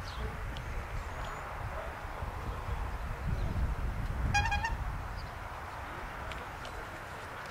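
Low, gusting rumble of wind on the microphone over an open field, with one short, high toot about four and a half seconds in.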